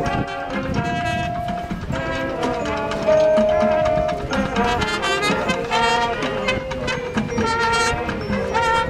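Marching band playing: brass over a drum line and front-ensemble marimbas, with a louder held brass note starting about three seconds in.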